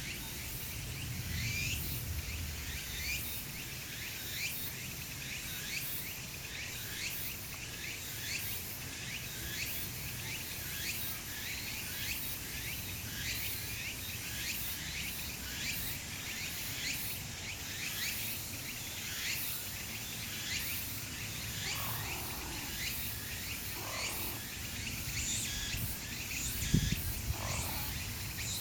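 Steady chorus of many overlapping high chirps from insects and birds, with a brief low thump about two seconds before the end.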